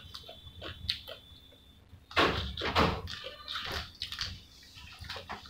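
Close-up wet chewing and lip-smacking of soft french fries, in irregular bursts, the loudest a little over two seconds in.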